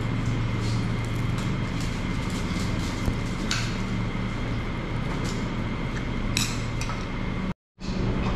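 Forks and spoons clinking now and then against plates and bowls during a meal, over a steady low hum in the room. The sound drops out briefly near the end.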